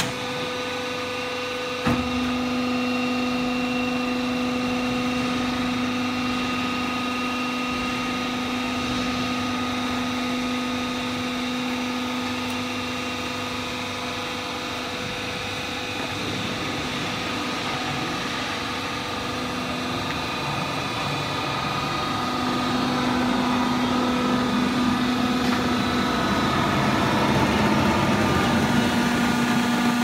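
Hydraulic power unit of a vertical cardboard baler running with a steady hum. It starts with a click about two seconds in and grows louder in the second half.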